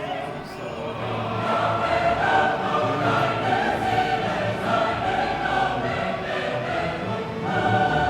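Choral music: several voices singing held notes together.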